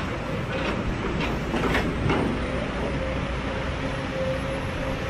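Heavy log-handling material handler working: a steady diesel-and-hydraulic drone with a faint held tone, and a few short knocks in the first two seconds.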